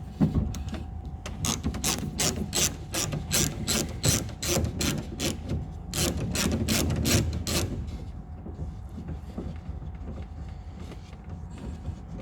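Hand ratchet with a 5mm Allen bit clicking steadily, about four clicks a second, while undoing the bolt that holds the door lock barrel. The clicking stops about eight seconds in, leaving quieter rubbing and handling of the bolt and tool.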